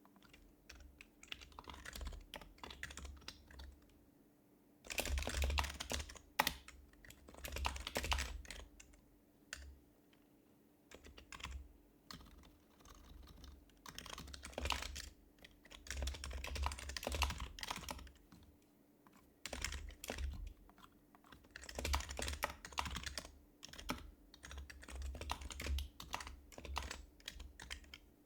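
Typing on an HHKB Professional Hybrid Type-S keyboard with its Topre electrostatic capacitive switches: soft, muffled keystrokes in quick runs of a second or two, broken by short pauses.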